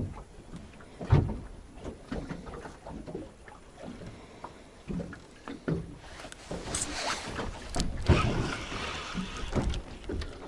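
Irregular knocks and handling noises in a small fishing boat, busier and louder from about seven seconds in.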